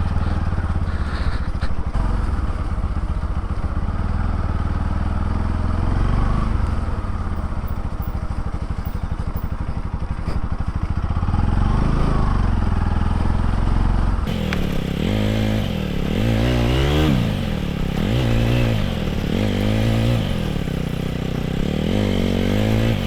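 Motorcycle engine running in a low gear at low speed, with the rear tyre slipping on slushy mud. From about two-thirds of the way in, the revs rise and fall again and again, about once a second.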